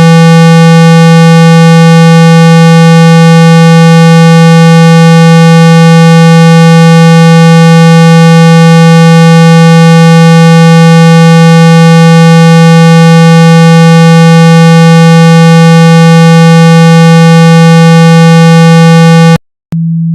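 A steady, very loud 165 Hz tone with a buzzy edge from many overtones, played to shake water and dust out of a phone speaker. Near the end it cuts out for a moment and comes back quieter and purer.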